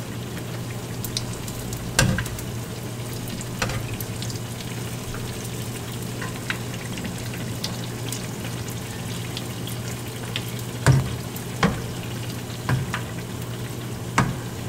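Balls of batter deep-frying in hot oil in a frying pan, a steady sizzle, with a slotted spatula knocking and scraping against the pan half a dozen times as it bastes and turns them.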